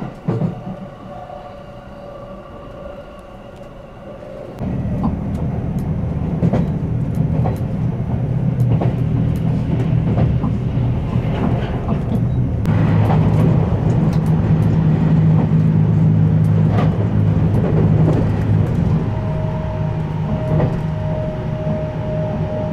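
JR West Haruka limited express (281 series electric train) running, heard from inside the passenger car: a steady low rumble of wheels on rail with scattered clacks. The first few seconds are quieter with a faint steady hum, and about four and a half seconds in the rumble suddenly gets much louder. A steady hum tone comes in near the end.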